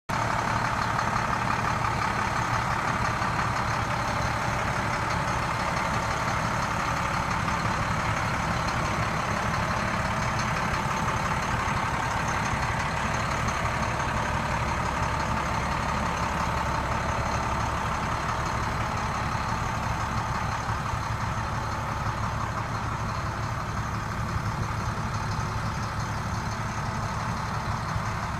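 International 4300 truck's DT466 straight-six diesel idling steadily, a low even hum that grows a little fainter near the end.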